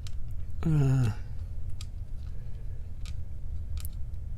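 Small metallic clicks and ticks from the pins and parts of a disassembled padlock being handled, a few scattered single clicks. About a second in there is a brief murmured voice sound, and a low steady hum runs underneath.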